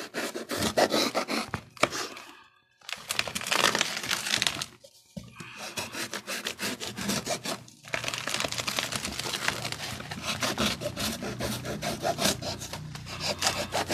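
Cardboard shipping box being handled, torn and cut open with scissors: a busy run of crackling, scraping and tearing cardboard, broken by two short pauses near the start.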